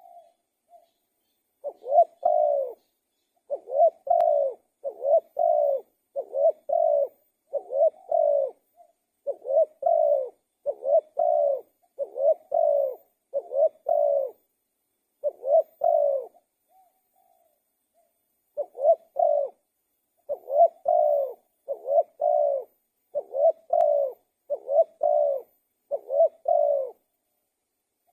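Spotted dove cooing vigorously: a long run of short, even coo notes, one to two a second, breaking off for about two seconds partway through before resuming.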